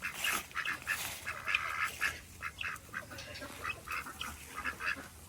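Ducks calling, a busy run of short quacks several times a second.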